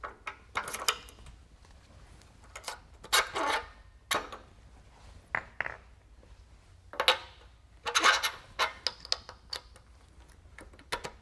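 Irregular metal clinks, clicks and short scrapes as a steel beading die is handled and fitted into the PH-19 power hammer's die holder; the hammer itself is not running.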